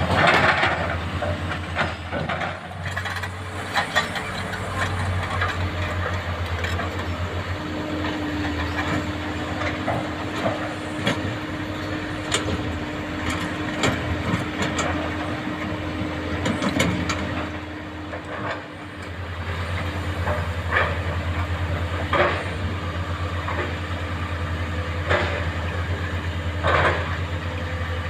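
Hydraulic excavator's diesel engine running steadily, with a steady hydraulic whine for several seconds in the middle. Scattered knocks and clatter come from the bucket working sand and rocks.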